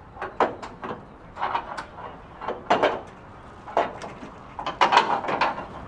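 Hand tools knocking and clanking against the metal structure of an F-15's open engine bay: about a dozen sharp, irregular knocks in small clusters.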